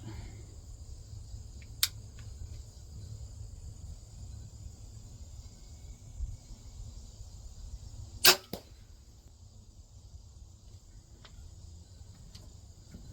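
A crossbow fired once, about eight seconds in: a single loud, sharp crack of the string release, followed a moment later by a fainter knock. A small click comes about two seconds in, over a steady low rumble.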